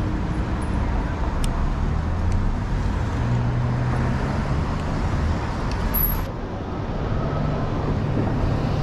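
City street traffic: cars and a van driving past on wet pavement, a steady rumble of engines and tyre noise.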